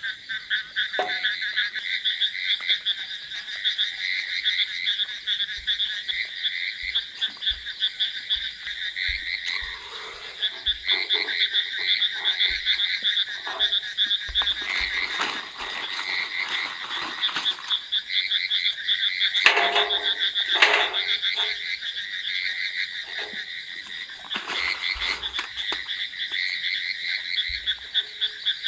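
Dense chorus of frogs calling, a fast pulsing trill that keeps up without a break. Close knocks and rustles of charcoal lumps and a metal grill being handled come and go in the middle.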